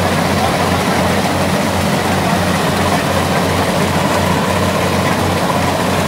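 Rice combine harvester's engine running steadily while the machine cuts through standing paddy: a continuous low drone with a regular throb, over the noise of the working machinery.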